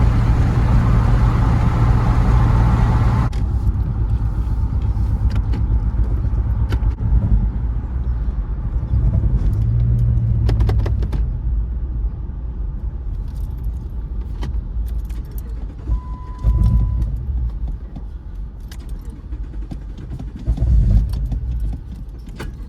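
A Jeep with a knocking connecting rod being driven: steady low engine and road rumble, with a broad rushing noise that drops away sharply about three seconds in, scattered light rattles, and a short steady tone about two-thirds through.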